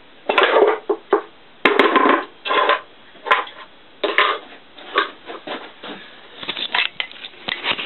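Metal clunks and scrapes from handling the freshly assembled 250 mm cast-iron lathe chuck: about a dozen irregular knocks and rattles, some lasting about half a second.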